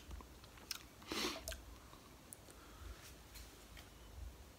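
Faint wet mouth sounds of someone tasting a sip of beer: a few small smacks and clicks, with a short breathy sound about a second in.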